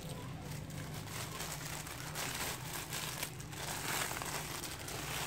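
Thin clear plastic bag crinkling in irregular bursts as a stack of black duckbill face masks is handled and slid back into it.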